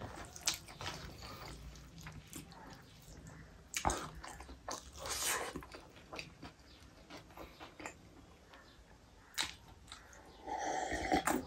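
Close-up wet chewing and lip smacking of a person eating rice and chicken gravy by hand, a string of short irregular smacks and clicks. Near the end comes a longer stretch of sipping and swallowing water from a glass.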